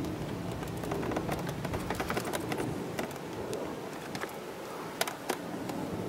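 Small irregular clicks and taps of wire connectors and plastic being handled as wiring is pushed into a scooter's plastic nose housing, with two sharper clicks near the end.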